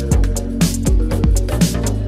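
Instrumental background music with a steady beat of drums and bass, about two beats a second.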